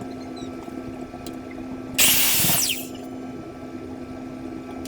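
A power saw cuts through a wooden board in one short burst about two seconds in. The burst lasts under a second and ends in a falling whine as the blade spins down. A steady low hum runs underneath.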